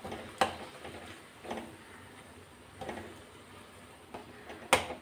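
A metal spoon stirring thick tomato paste in a metal kadhai, scraping the pan with a few sharp clinks. The loudest clink comes near the end.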